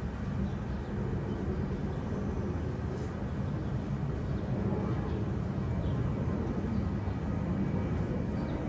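Steady low rumble of outdoor street background noise, with no distinct events.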